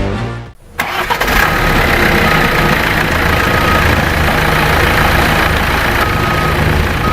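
Komatsu bulldozer at work, its diesel engine running steadily under load over a constant noisy clatter from the tracks and the material being moved. A few short high squeals sound now and then.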